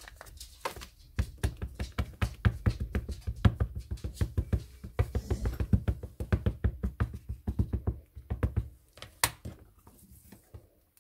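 An ink pad tapped rapidly and repeatedly onto a red rubber stamp held in an acrylic stamping platform, inking the stamp with archival ink. The tapping stops a little before the end and is followed by a single sharp click.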